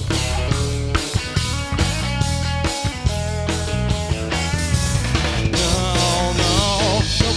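Live band playing an instrumental passage: drum kit, bass and guitar keeping a steady groove. A lead line of wavering, vibrato notes comes in near the end.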